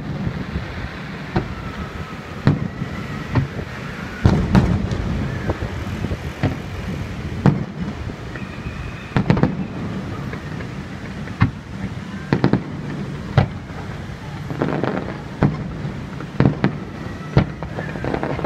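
Aerial firework shells bursting in a fireworks display: sharp bangs at irregular intervals, some in quick clusters, over a continuous low rumble. The bangs crowd together near the end.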